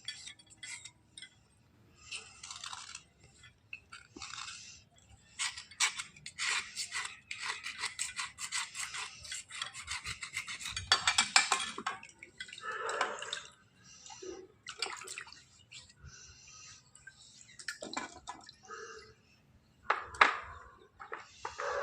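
Slate-pencil bars being scraped and scrubbed clean: irregular gritty strokes, with small clicks and taps in between.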